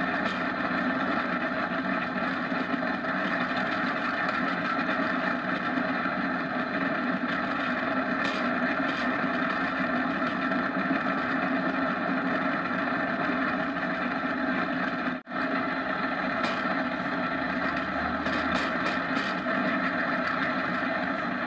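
Steady running noise of a go-kart speeding downhill on asphalt, dropping out for an instant about fifteen seconds in.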